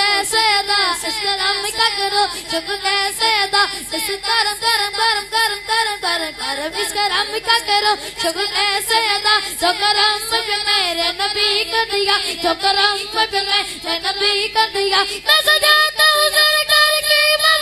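A boy singing a devotional naat solo into a microphone, one long ornamented melodic line. It grows a little louder and brighter near the end.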